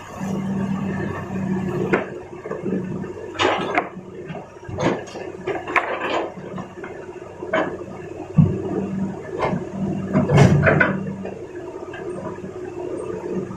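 Excavator engine running steadily while rock clatters and crashes in irregular knocks, loudest about ten seconds in, as the machine loads stone into a truck.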